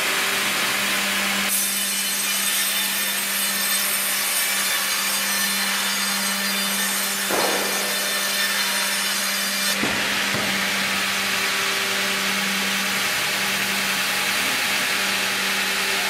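Hydraulic vertical band saw running with a steady hum. About a second and a half in, the blade goes into a log on the carriage, and a high sawing hiss carries on until it stops abruptly near ten seconds as the cut ends. The saw keeps running after that.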